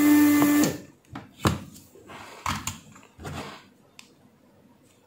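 Desoldering iron's vacuum pump running with a steady hum and hiss, sucking molten solder off the capacitor's joints to free it, and cutting off less than a second in. After it come a few light clicks and knocks as the freed capacitor is handled.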